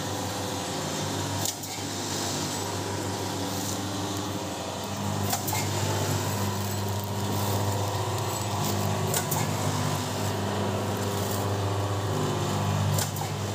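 Automatic tempeh packing machine running with a steady low hum that grows louder about five seconds in, with a few sharp clicks at irregular intervals.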